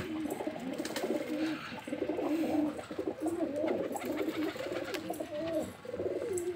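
Domestic pigeons cooing, several birds calling over one another in repeated warbling coos, with a few light ticks among them.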